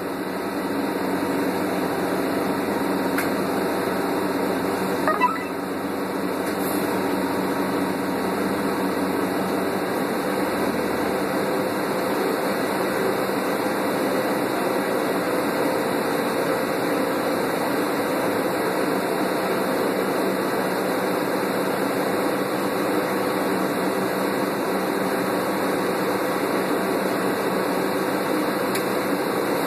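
Steady interior drone of a New Flyer C40LF transit bus running on its Doosan CNG engine, heard from inside the passenger cabin. A brief sharp click or squeak comes about five seconds in.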